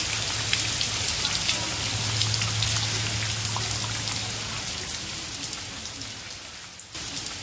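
Rain falling on muddy ground and a puddle. Many separate drops splash close by over a steady hiss. It grows somewhat softer over the last few seconds.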